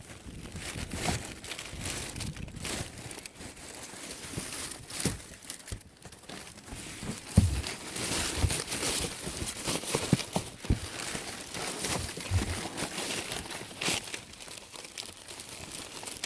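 Plastic and paper crinkling and rustling in irregular bursts, with scattered light knocks, as discarded retail packaging is rummaged through by hand.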